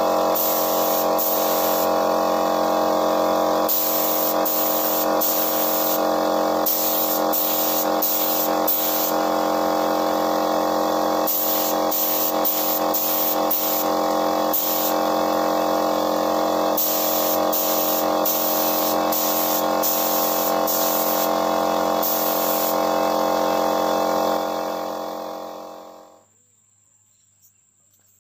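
Gravity-feed paint spray gun hissing in repeated short bursts as duco paint is sprayed, over the steady hum of the air compressor that feeds it. Both die away about 25 seconds in.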